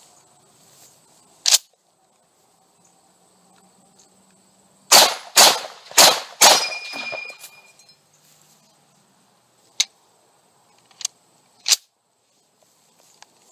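1944 Springfield Armory M1 Garand (.30-06) firing four shots in quick succession about five seconds in, with a brief metallic ring after the last shot. A sharp metallic click comes about a second and a half in, and a few smaller clicks follow near the end as the rifle is handled.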